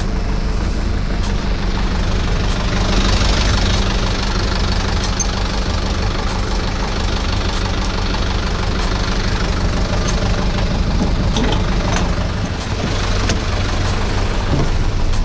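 Small flatbed truck's engine idling steadily, with a few light clicks and knocks near the end.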